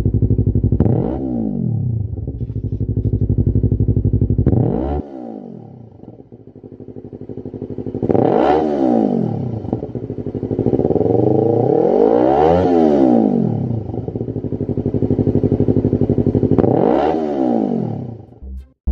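Yamaha YZF R3's parallel-twin engine running through a Lextek SP1 full aftermarket exhaust system, revved up and dropping back to idle five times. The rev in the middle is the longest.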